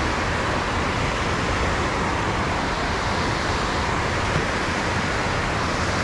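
Steady rushing of water spilling over a low-head concrete dam.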